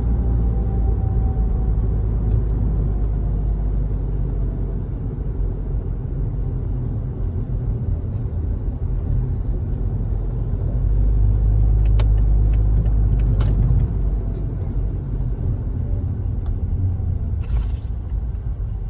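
Mercedes-Benz B200 CDI (W245) on the move, with a steady low rumble. About 12 to 13.5 seconds in come several sharp knocks, typical of the suspension or steering knock the car is being checked for, and a brief hiss comes near the end.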